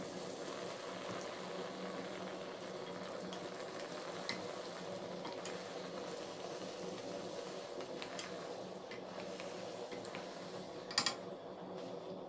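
Flatbread dough frying in very hot oil in a stainless steel pot: a steady sizzle of bubbling oil, stirred with a wooden spoon. A brief sharp click sounds about eleven seconds in.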